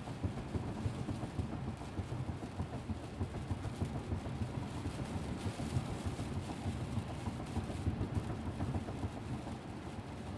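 The inside of a moving car's cabin while driving in rain: a steady low rumble of road and engine noise, with a fainter even hiss of rain and spray on the car.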